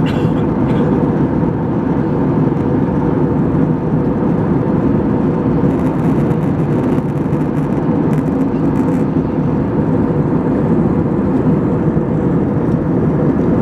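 Steady drone of a jet airliner's engines and rushing airflow, heard from inside the passenger cabin in flight, with a faint steady hum in it.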